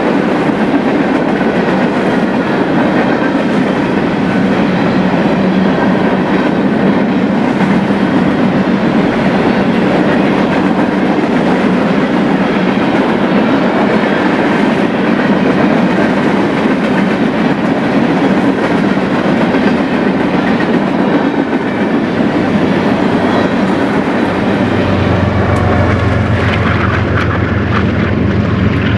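Freight cars of a mixed freight train (hopper and tank cars) rolling past at speed, steel wheels clattering over the rail joints. A low steady hum comes in near the end.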